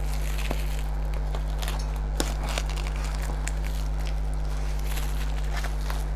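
A steady low mains-type hum, with faint scattered crackles and rustles from a plastic-wrapped parcel being handled and cut open.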